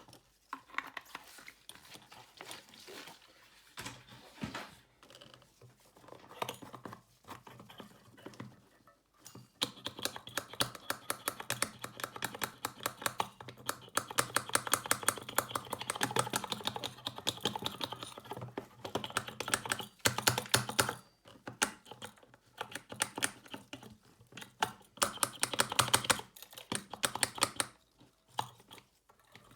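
Fast runs of light clicking and tapping from small hand tools working on a smartphone's body and back cover. A dense stretch starts about a third of the way in and lasts roughly ten seconds, and a shorter burst comes near the end.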